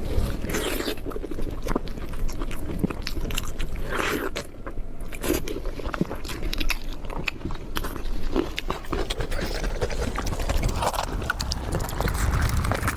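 A person eating close to the microphone: biting and chewing, with many irregular crisp clicks and smacks.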